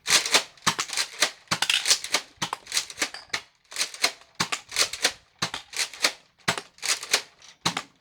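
Nerf Elite Surgefire pump-action dart blaster slam-firing: the pump racked back and forth over and over with the trigger held, loud plastic clacks about two to three a second, each stroke firing a dart.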